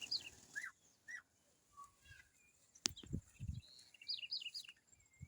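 Small birds chirping in short, high, down-slurred notes, in quick clusters near the start and again about four seconds in. A sharp click and a few low thumps come near the middle.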